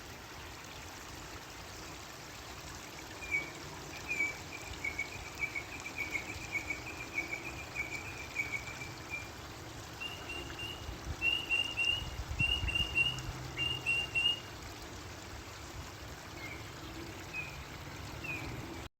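Steady running water with a bird chirping over it: a quick run of chirps a few seconds in, then a string of separate chirps, and a few scattered ones near the end.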